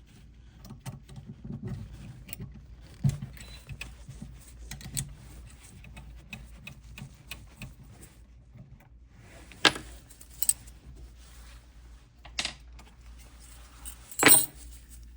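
Small metal tools and parts clinking and rattling by hand during an end-mill change on a CNC spindle, with wrenches and the collet nut being handled. There are many light clicks and a few sharper clinks, the loudest near the end.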